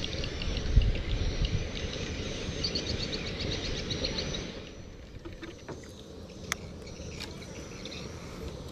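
Steady low rumble of a boat on the river, with a low thump about a second in. Rapid high chirping sounds over it and stops about halfway through.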